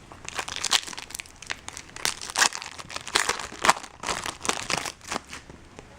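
Foil wrapper of a trading-card pack crinkling, in a run of short, irregular rustles as it is handled.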